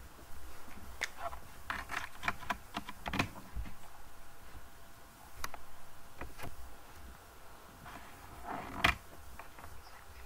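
Scattered short clicks and taps, like computer keyboard keys and mouse buttons, with one sharper knock about nine seconds in.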